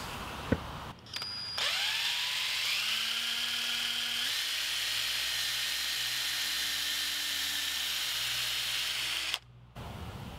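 A single sharp knock, then a handheld electric drill spins up and runs steadily for several seconds while boring a pilot hole into a wooden post, before cutting off abruptly.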